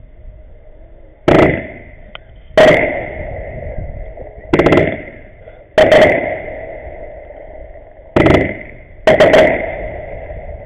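Aerial fireworks bursting overhead: six sharp, loud bangs at uneven intervals of one to two seconds, each trailing off over about a second.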